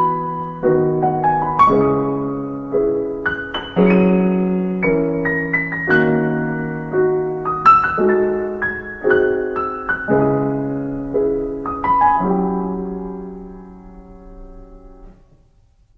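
Background music: a piano playing a slow run of notes and chords, fading out and ending near the end.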